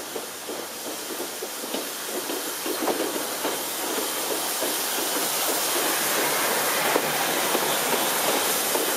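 A C58 steam locomotive passes close with a hiss and a rhythmic clatter, followed by its passenger coaches rolling by on the rails. The sound grows steadily louder until about halfway through, then holds.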